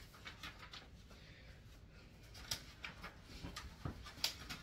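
Quiet room with faint rustling and a few light taps, the sharpest near the end.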